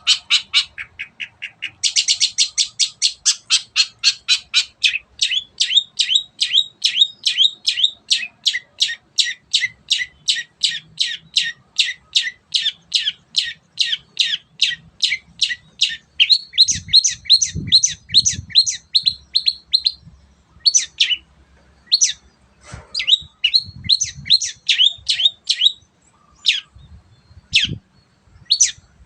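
Long-tailed shrike (cendet) singing hard, a fast run of sharp, evenly repeated notes at about four a second that breaks into shorter bursts with pauses about two-thirds of the way through. A few low thuds are heard alongside the song near the middle.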